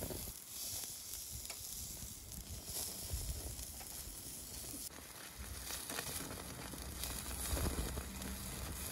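Thick slab of Hanwoo beef sizzling steadily on a wire grate over a portable gas grill's open flame.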